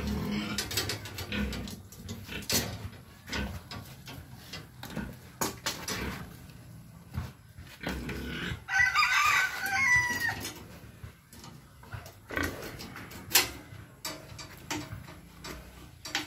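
A rooster crows once, about nine seconds in, for about a second and a half. Scattered clicks and knocks of hands and tools working on a pen's wire gate run under it.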